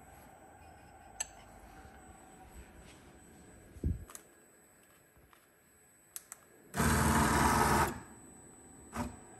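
Beckhoff AM8000 servo motor driving a ball-screw linear axis runs for about a second, the loudest sound. Before it there are a few light clicks and a dull knock.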